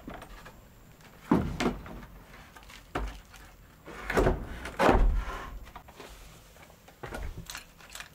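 A string of irregular knocks and scuffs, about seven in all, with the loudest in the middle.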